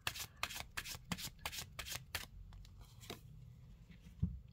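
A tarot card deck being shuffled by hand: a quick run of card flicks for about two seconds, then a few single card sounds. Near the end comes a low thump as a card is laid down on the table.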